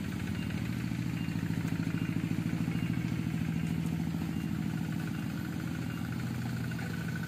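A small engine running steadily at idle, an even low pulsing hum that does not rise or fall.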